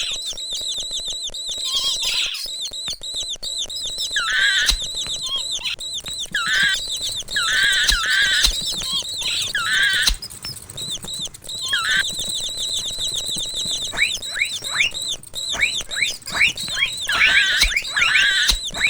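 Mouse squeaking sound effect: quick, high-pitched squeaks repeated in rapid clusters, thinning out for a couple of seconds past the middle and getting denser again near the end.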